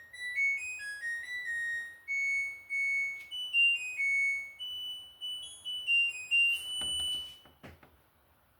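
LG top-loading washing machine's electronic beeper playing its short end-of-cycle melody, a run of pure stepping notes, signalling that the wash, rinse and spin program has finished. A few sharp clicks follow near the end.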